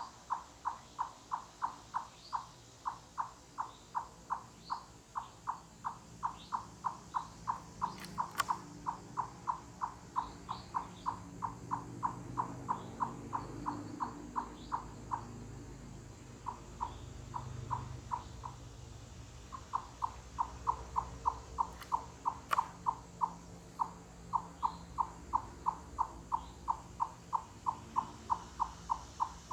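Eastern chipmunk giving its loud, hollow 'cluck-cluck' call, like knocking on wood, about three a second in a long even run. It breaks off briefly twice in the second half. This is the late-summer chipmunk calling that the uploader takes for communication, perhaps territorial, rather than a predator alarm.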